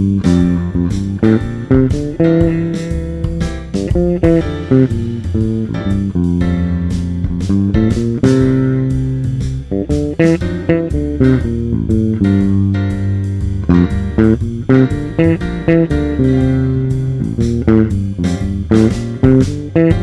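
Extended-range electric bass playing a walking, improvised jazz solo line at 120 beats per minute, a quick, steady stream of plucked notes.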